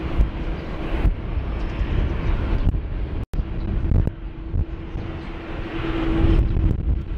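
Jet engines of a Boeing 787-9 Dreamliner taxiing at low power: a steady rushing with a faint steady hum, mixed with wind buffeting the microphone. The sound breaks off for an instant about three seconds in.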